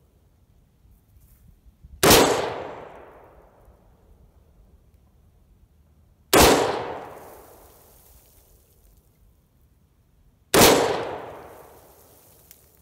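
Three rifle shots from a 6.5 Grendel AR-15, fired slowly about four seconds apart. Each report rings out and fades over a second or so.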